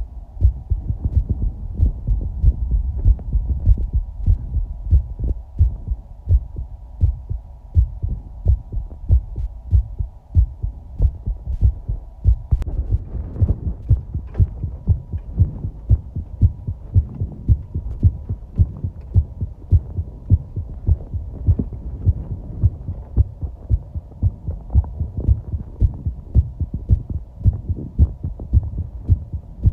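A person's heartbeat heard close up: a regular train of low thumps, over a faint steady hum.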